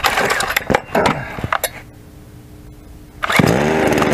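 Clicks and knocks of the Dereal 6220F 62cc two-stroke chainsaw being handled and readied, then about three seconds in the starter is pulled and the engine catches at once, rising in speed and settling into a steady run.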